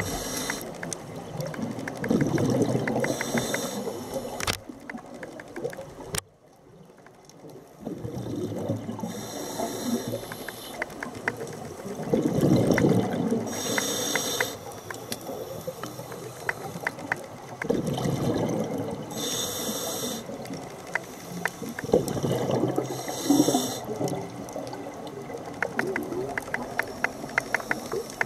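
Scuba diver breathing through a regulator underwater: a short high hiss on each inhale and a bubbling rush on each exhale, several breaths a few seconds apart.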